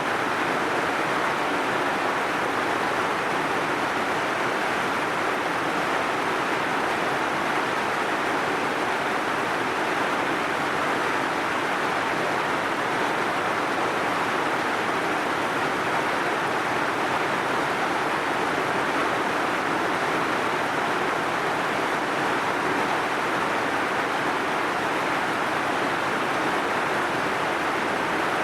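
Heavy rain falling as a steady, unbroken hiss, with no single drops, gusts or thunder standing out.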